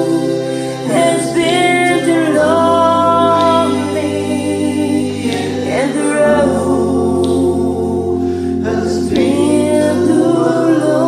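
A cappella singing in several-part vocal harmony, with no instruments. Long held notes over a low sustained part, with the chord changing every few seconds.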